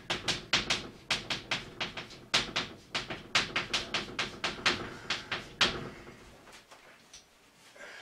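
Chalk tapping and scratching on a blackboard as Japanese characters are written: a quick run of sharp strokes, several a second, that stops about six seconds in.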